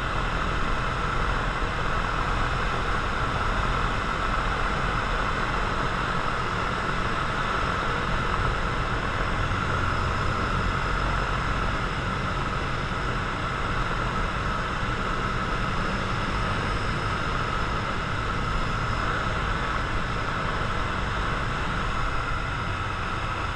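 Cessna 172's piston engine and propeller droning steadily, heard inside the cabin with a rush of wind noise.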